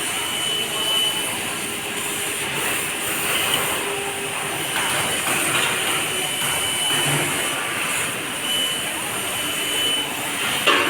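Fiber laser cutting machine cutting metal: a steady hiss, as of the assist gas jet at the cutting head, with a short high tone coming and going a few times.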